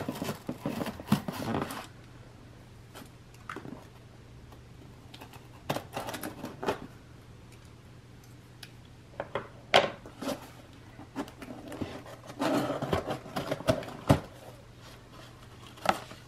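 Scissors cutting the tape on a cardboard mailer box, then the cardboard flaps being pulled open and packing paper rustling. The sounds come in scattered bursts with a few sharp snaps.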